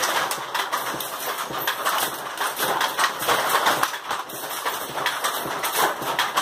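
Handloom and its weft-insertion device being worked by hand: a rapid, irregular run of clacks and knocks from the moving loom parts.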